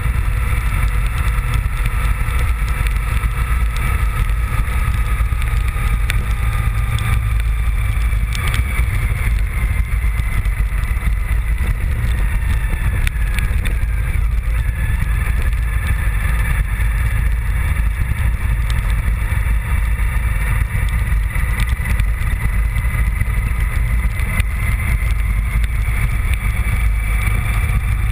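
Honda VFR750 motorcycle's V4 engine running steadily under way over a heavy low rumble of wind and road noise. Its pitch drifts slowly down, then climbs again about halfway through.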